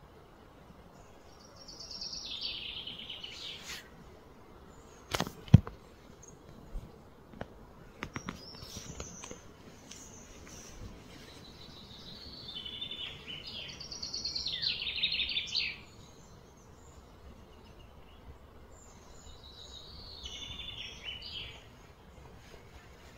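A songbird singing three separate trilled phrases, high-pitched, over a steady low outdoor background. A couple of sharp clicks about five seconds in, with a few lighter ones after.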